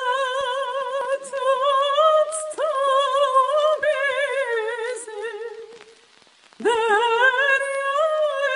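A woman sings a Turkish folk song (türkü) in operatic style, holding long notes with a wide, even vibrato. Her line fades away about five and a half seconds in and she comes back in on a new phrase about a second later.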